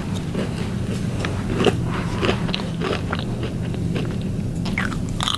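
Irregular clicks, rubs and crackles of a handheld camera being moved about, over a steady low hum.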